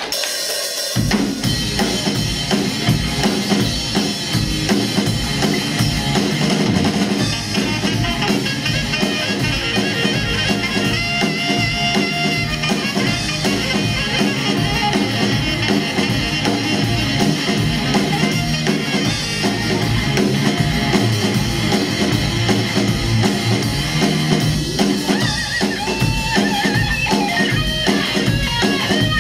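Live rock band starting a song about a second in: a full drum kit with kick and snare driving a steady beat under an electric violin's held notes and amplified guitars.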